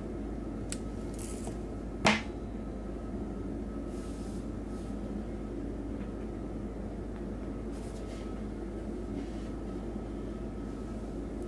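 A single sharp metallic click about two seconds in from small pliers working steel wire at a fishing hook's shank, with a fainter click shortly before. Underneath runs a steady hum of room noise.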